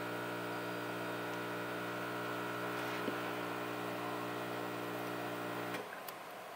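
Steady electrical hum with a buzzy, layered tone that cuts off suddenly near the end, followed by a faint click.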